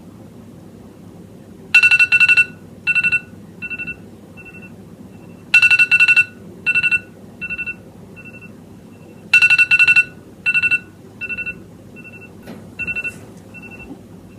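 Phone alarm ringing to wake a sleeper: short electronic beeps in rounds about every four seconds, each round opening with a few loud beeps and trailing off into quieter ones, repeated three times.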